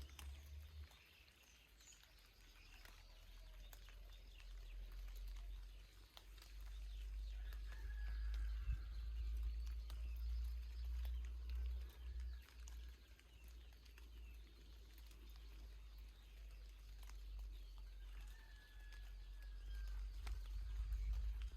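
Light rain with scattered drips and a few faint bird chirps and whistles, over a steady low rumble that swells and fades.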